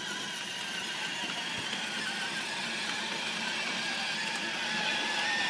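Electric drive motor and gearbox of a battery-powered children's ride-on toy car whining steadily as it drives, the whine growing a little louder toward the end.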